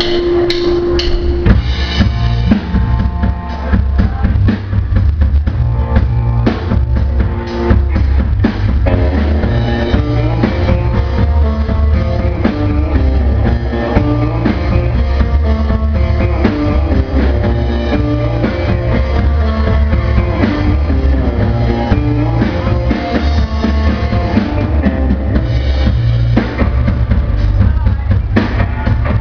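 Live rock band playing a song: drum kit keeping a steady beat under heavy bass and guitar, loud and bass-heavy as heard from within the audience.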